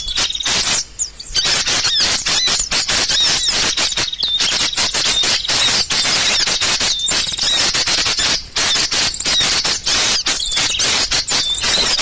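Bird-trapping lure call for small birds: a dense, rapid chatter of sharp chips with short whistled notes repeating through it.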